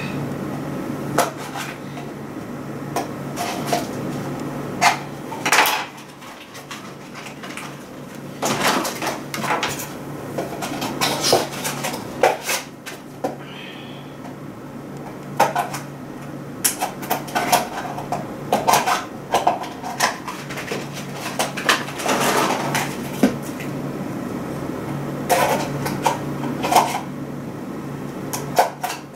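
Hard plastic toys and household items clattering and knocking as they are picked up, sorted and dropped, in irregular clacks over a steady low hum.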